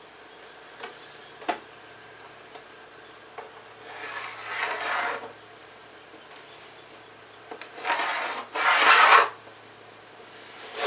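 Pencil drawn along a metal ruler on a plywood board: three drawing strokes, a longer one about four seconds in and two shorter ones in quick succession near the end, after a couple of light clicks.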